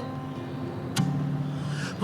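Sparse instrumental accompaniment with the voice resting: a low chord sustains, then a new chord is struck about a second in and rings on.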